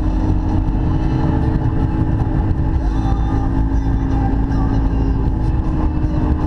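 Baja powerboat underway at a steady speed: its engine drones at an even pitch under a heavy rumble of wind on the microphone and rushing water.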